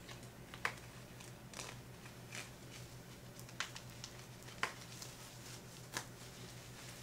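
Faint rustling and a few soft, scattered clicks from hands adjusting a water-wave human-hair lace wig, over a low steady hum.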